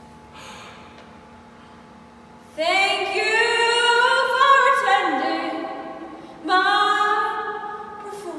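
A girl's voice singing loudly without accompaniment, two long held notes starting about two and a half seconds in, the first sliding down in pitch before it fades.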